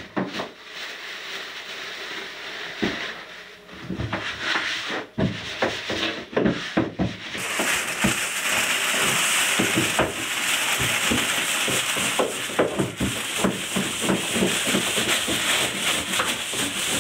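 Hands working diced samsa filling in a plastic basin, with scattered ticks and rubbing, and plastic bags rustling as spices and fat are poured in; from about seven seconds in the rustling becomes denser and steadier.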